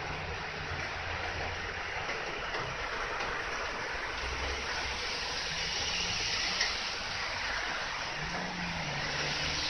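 Steady rain hissing on the platform and track, with a diesel railcar's engine humming low and fading as the train pulls away.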